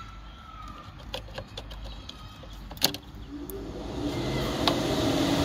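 Small plastic clicks as a relay is handled and pushed into the fuse box, then a sharp click about three seconds in, after which the Chevrolet Orlando's electric radiator cooling fan starts and spins up with a rising whine, growing louder. The fan runs constantly whenever the ignition is on: the fault being traced, which began after an engine wash.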